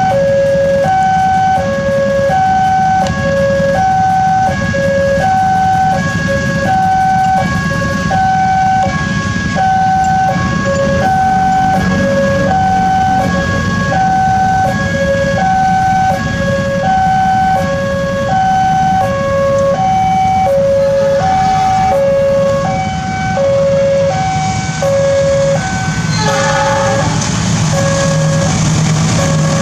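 Railway level-crossing warning alarm sounding: two tones alternating, each held about half a second, repeating steadily. Near the end the low hum of an approaching diesel locomotive joins in.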